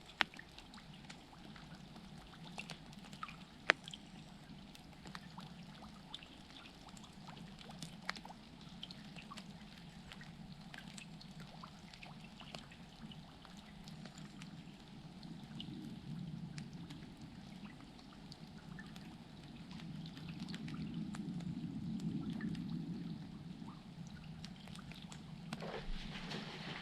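Water trickling and dripping, with scattered sharp drips over a low steady rush that swells twice.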